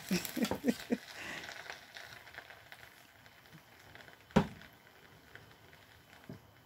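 Wooden spoon stirring jollof rice in a speckled non-stick pot: a few short scrapes and knocks in the first second, then a soft rustling, and one sharp knock of spoon on pot about four seconds in.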